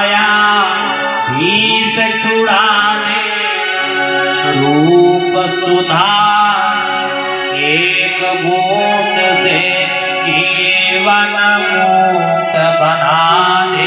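A man singing a devotional song in a melismatic, chant-like style, accompanied by a harmonium whose reeds hold steady notes beneath the sliding vocal line.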